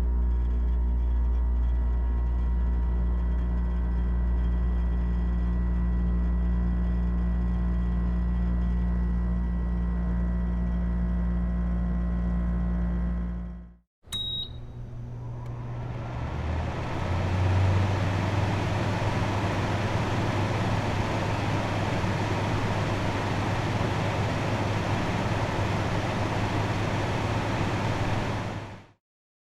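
Air conditioner running: first a steady low electrical hum for about half the time, then after a short break, a click and a brief high beep, the fan airflow rises over a couple of seconds into a steady whoosh with a lower hum underneath, cutting off shortly before the end.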